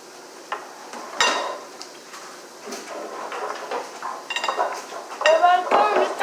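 Dishes and cutlery clinking and clattering in scattered knocks, with a sharp ringing clink about a second in.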